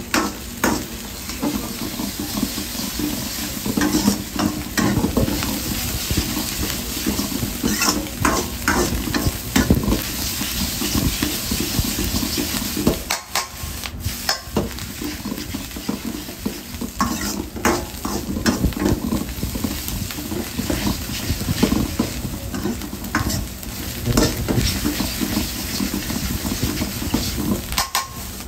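Noodles and shredded cabbage sizzling in a hot wok, with a metal ladle scraping and clanking against the pan in quick, irregular strokes. The sizzle dips briefly about halfway through as the noodles are tossed up the side of the wok.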